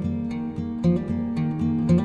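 Background music: an acoustic guitar playing plucked chords.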